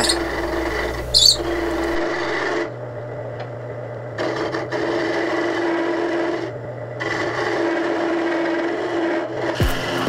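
Wood lathe running with a hand-held turning chisel cutting into the spinning wooden spindle: a steady motor hum under rasping cutting noise, which drops away briefly about three seconds and six and a half seconds in as the tool is eased off.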